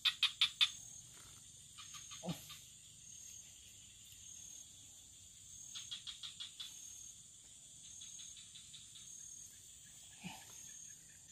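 Steady high chirring of insects at a swamp edge. Two short runs of fast, evenly spaced clicks cut through it, one right at the start and one about six seconds in.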